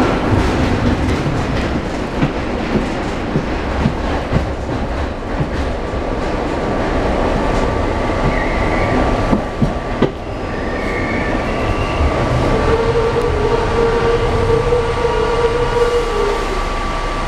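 PATCO rapid-transit train running, heard from inside the car: a loud, steady rumble of the wheels on the rails with irregular clicks over the rail joints. About two-thirds of the way through, a steady whine joins it for a few seconds.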